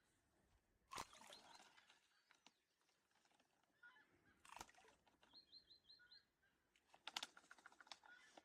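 Faint bird calls: three short call bursts, each starting sharply, and a quick run of five short high notes in between.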